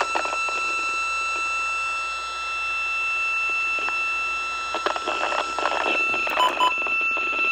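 Steady high-pitched electronic tone on an emergency-alert TV channel's audio, with a second, higher pitch above it, running on without a break: the broadcast of the severe thunderstorm warning has failed. A few clicks and short beeps come in near the end.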